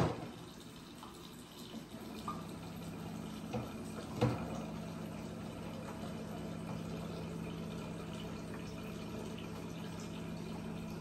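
Water running steadily into a bowl as it fills, over a steady low hum that starts about two seconds in. A sharp knock at the very start and another about four seconds in.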